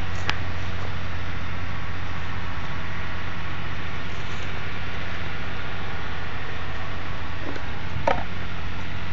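A steady low hum with an even hiss. There is a single sharp click near the start and a brief short sound about eight seconds in.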